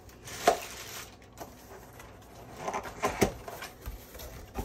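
Handling noise from a cardboard pizza box and a plastic food container: a few knocks and rustles as the container is moved aside and the box lid is lifted open.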